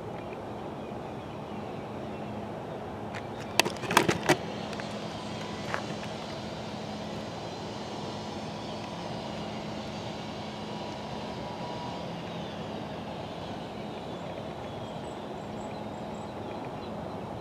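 Outdoor background noise with a low steady hum, likely distant traffic. A short cluster of sharp clicks comes about four seconds in, with one more click about two seconds later.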